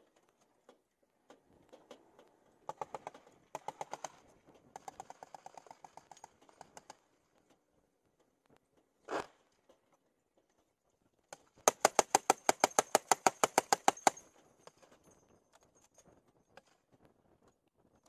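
Turret-mounted heavy machine gun firing from a Humvee. Short strings of shots come first, then a loud, rapid burst of about two and a half seconds, roughly ten rounds a second, that cuts off suddenly. The stop fits a feed malfunction from an ammo belt that had been thrown around and repacked. One loud single knock falls between them.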